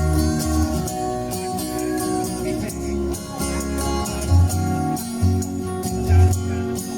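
Live looped music: layered guitar parts playing back from a loop pedal over a bass line that moves between sustained low notes, before any drums come in.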